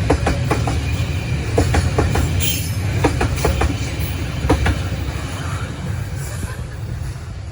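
Train cars passing, wheels clacking over the rail joints in quick pairs over a deep rumble. The clacks stop about five seconds in and the rumble dies down.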